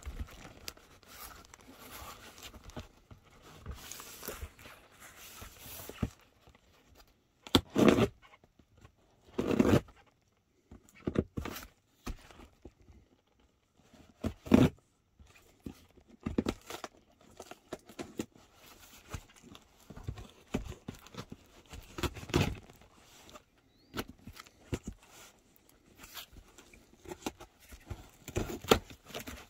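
Cardboard shipping box being handled and opened: irregular scraping and tearing of packing tape and cardboard, with a few louder rips scattered through.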